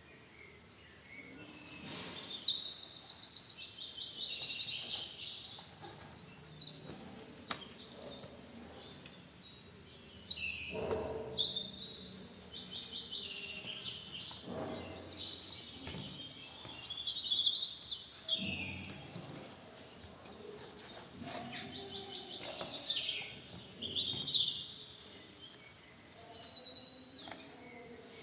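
A songbird singing in phrases of fast, high trills and chirps, a new phrase every few seconds, with a few soft knocks in between.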